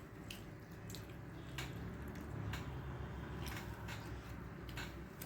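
Close, wet eating sounds: chewing and lip smacks on a mouthful of rice and curry, with soft sharp clicks about every half second under a low steady hum.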